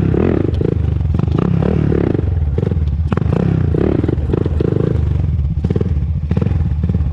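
2001 Honda TRX400EX ATV's single-cylinder four-stroke engine running steadily while being ridden, with no ticking heard: the earlier tick appears cured.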